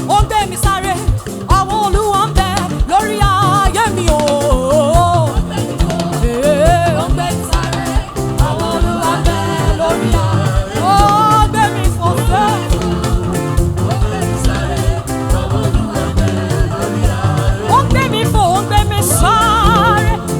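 Live gospel praise music. A lead singer holds and slides long wavering notes without clear words over a steady beat of drums and a bass line.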